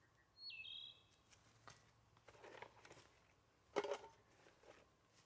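Faint rustles and clicks of a small cloth pouch being handled, the loudest a little under four seconds in. A short bird call whistles downward in two steps about half a second in.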